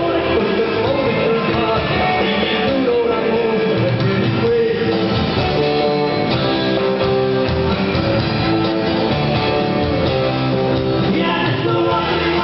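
Live rock band playing: electric guitar, electric bass and drums, with a voice singing. The treble is cut off, as on an old videotape recording.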